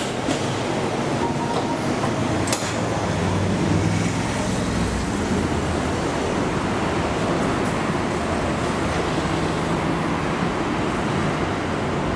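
Steady mechanical noise of an Alstom Citadis tram with street traffic around it, heard first inside the car and then from the platform beside the tram as it stands at the stop. A short click about two and a half seconds in.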